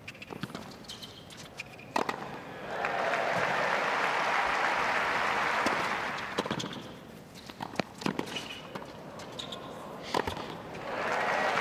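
Tennis ball struck by rackets in a rally, sharp single strikes a second or so apart, then crowd applause for about three seconds. Another rally of strikes follows, and the applause starts up again near the end.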